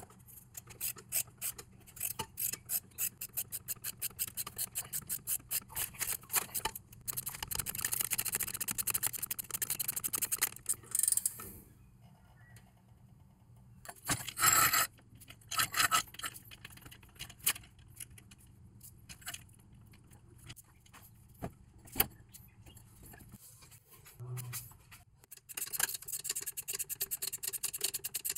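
Hand ratchet clicking in quick runs as the 13 mm bolts on a BMW Z3 exhaust are driven, mixed with scraping of tools on metal. A few louder knocks come about halfway through.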